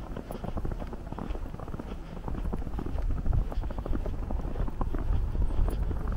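Footsteps crunching in fresh snow, a dense crackle of small clicks, over a low rumble of wind on the microphone.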